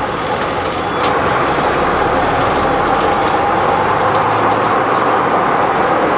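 Bristol VR double-decker bus heard from on board while under way: a steady engine drone mixed with body and window rattle, getting louder about a second in.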